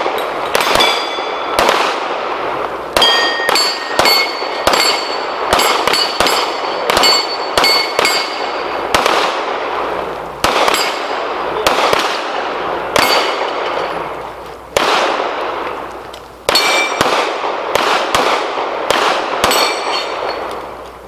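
Two shooters firing pistols in quick, irregular strings at steel targets, dozens of shots with the steel plates clanging and ringing after hits.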